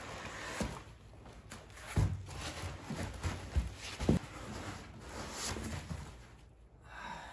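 A large foam packing insert being lifted out of a cardboard box: foam scraping and rustling against the cardboard, with a few dull thumps, the loudest about two and four seconds in.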